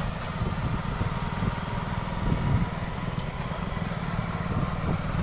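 A motorbike's engine running steadily while the bike is ridden, heard from the rider's seat with rumbling wind on the microphone.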